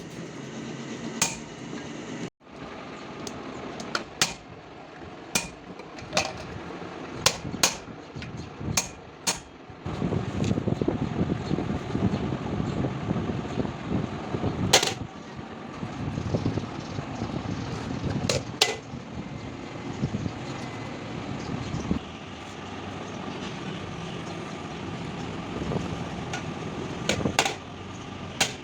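Sharp, separate hammer strikes on metal at irregular intervals, over a steady rumbling background noise that grows louder about a third of the way in.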